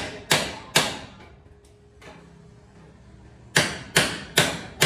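Repeated sharp strikes at an even pace of about two and a half a second, each with a short ringing tail: three strikes, a pause of nearly three seconds, then four more.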